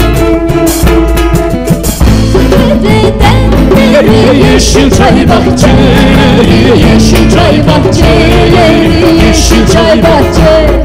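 Live Turkish folk ensemble playing, with cello, plucked lute and drum kit under a winding melody line. Held notes sound for the first two seconds, then the music turns into a busier passage with steady drumming.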